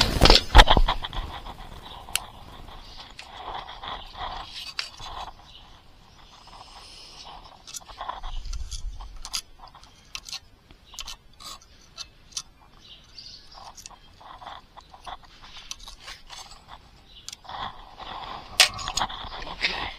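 Scattered light clicks, taps and scrapes of small metal hand tools and a circuit board being handled, with a couple of louder knocks at the start.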